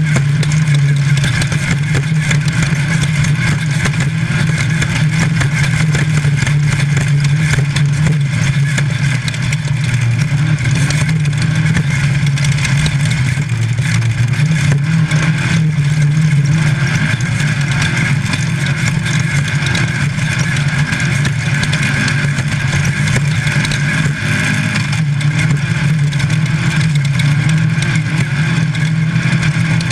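Class 5 Unlimited VW Baja Bug's engine running hard at race pace, heard from inside the car, over a constant rushing noise. The engine note holds steady, with small rises and dips as the throttle changes.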